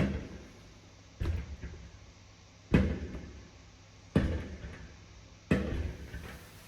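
Aerial fireworks shells bursting: five deep booms about every second and a half, each trailing off over about a second.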